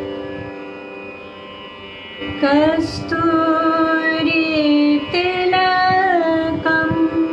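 Woman singing the slow opening of a devotional bhajan in Indian classical style, with long held notes and slides between them, over a steady drone. The voice comes in about two seconds in.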